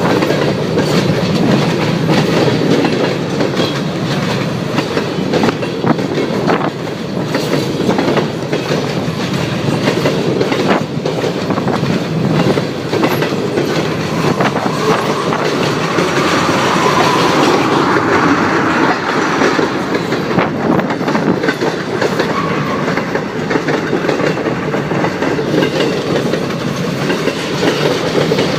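Freight cars of a passing train rolling by, a steady rumble with repeated clicks of the wheels over the rail joints.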